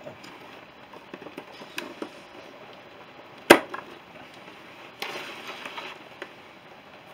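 Motorcycle drum brake shoes and their return springs being fitted together by hand: small metallic clicks and taps, then one sharp snap about three and a half seconds in as the sprung shoes close together. A brief scraping sound follows about five seconds in.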